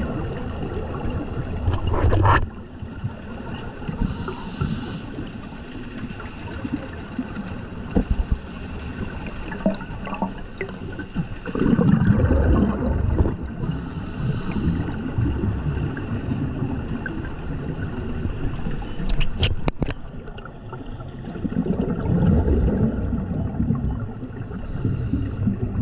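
Underwater sound of open-circuit scuba breathing: a rumbling rush of exhaled regulator bubbles about every ten seconds, each followed by a short hiss of inhalation. There are a few sharp clicks shortly before the last exhalation.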